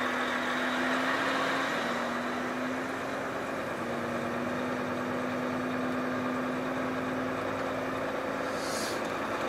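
Volvo FH truck's diesel engine running with a steady drone whose pitch shifts slightly a few times, pulling a lowboy trailer loaded with an excavator.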